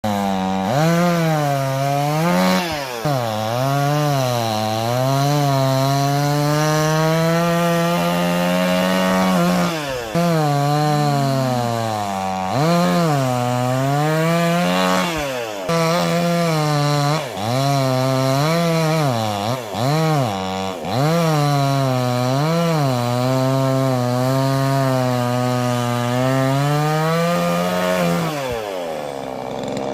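Suzuki 58cc two-stroke chainsaw cutting through a large oak log. The engine pitch sags and recovers again and again as the chain bites into the wood and frees up, with a few brief drops in loudness.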